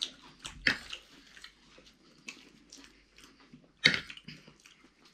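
Close-miked chewing and wet mouth sounds of a person eating, with scattered small clicks and one sharper click about four seconds in.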